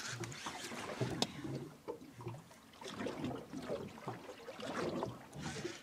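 Small waves lapping and splashing against the hull of a drifting boat, with scattered light knocks.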